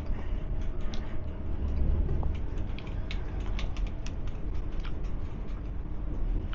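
Inside a passenger train: a steady low rumble and hum, swelling briefly about two seconds in, with scattered light clicks and rattles over it.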